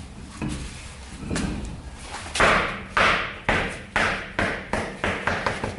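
A series of sharp knocks, each with a short ringing tail, coming about twice a second from a couple of seconds in.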